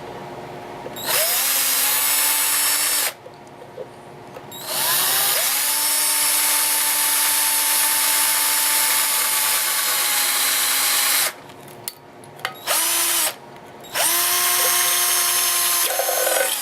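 Electric drill with a small bit boring a hole through the metal wall of a tin can, run in four bursts: the motor whine rises as each burst starts and falls away as it stops, with one long run in the middle and one very short one.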